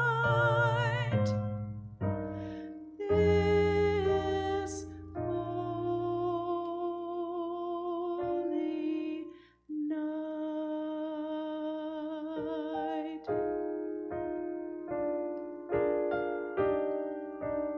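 A small vocal ensemble finishes a line with vibrato in the first second, then a piano plays on alone. It holds chords that ring and fade away, then plays a run of shorter repeated chords.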